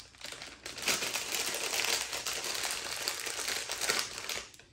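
Clear plastic bag crinkling steadily as it is handled and things are taken out of it, for about four seconds, stopping just before the end.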